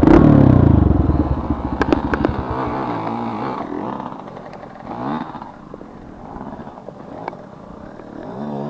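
Trail bike engine running loud at first and fading over the first few seconds, then quieter revs rising and falling and building again near the end. A few sharp clicks about two seconds in.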